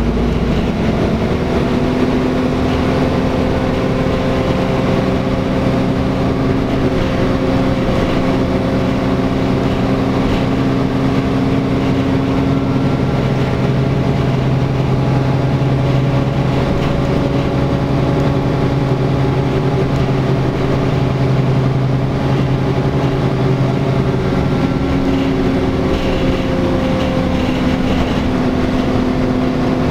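NefAZ-5299 city bus heard from inside its cabin while driving along at a steady speed: a steady engine and drivetrain drone with several held tones over road noise.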